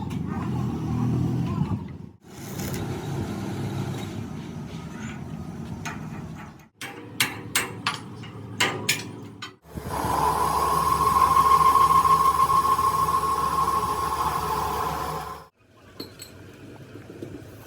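Workshop repair sounds cut together in short pieces: low machine noise, then a quick series of sharp metal-sounding knocks, then a loud steady mechanical noise with a held mid-pitched whine that stops abruptly.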